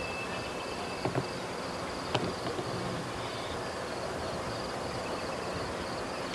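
Insects chirring faintly in a steady, slightly pulsing high trill over a low background rumble, with two light clicks about one and two seconds in.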